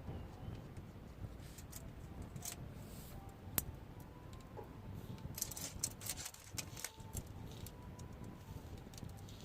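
Scattered light clicks and rattles, like small metal parts or tools being handled, over a low rumble, with one sharp click about three and a half seconds in.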